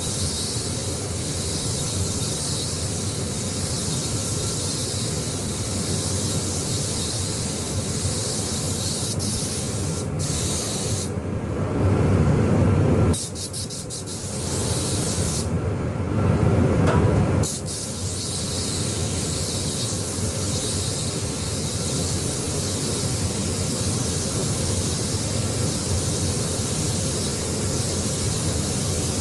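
Air spray gun hissing steadily while laying on solid-colour automotive paint, cut off twice near the middle for a couple of seconds each, when a louder low rumble takes over.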